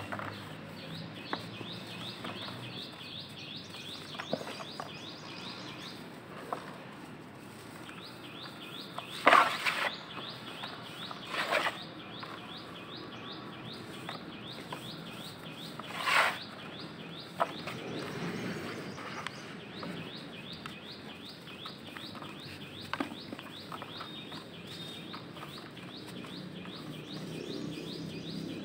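Dry dirt clumps crumbled by hand, grains trickling and falling into a plastic bucket, with three louder crunching bursts about 9, 11 and 16 seconds in. A bird chirps in a rapid, even series in the background throughout.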